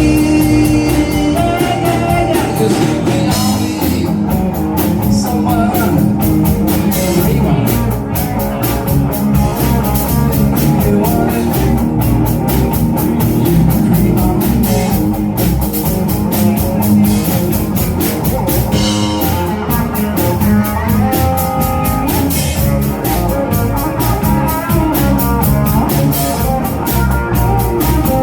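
Live rock band playing an instrumental passage, guitar over a drum kit keeping a steady beat.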